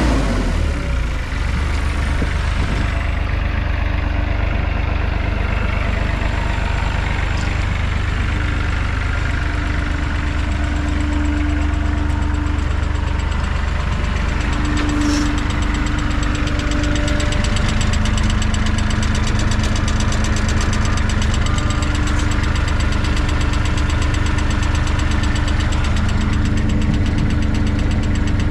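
John Deere 260 skid steer's diesel engine idling steadily, with an even diesel clatter.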